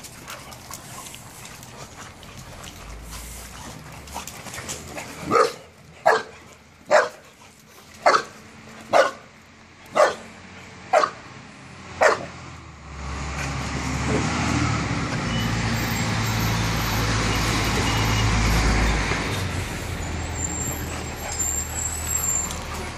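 A dog barks eight times, about once a second. Then a louder, steady rumbling rush of noise takes over for about nine seconds, with a faint high squeal partway through.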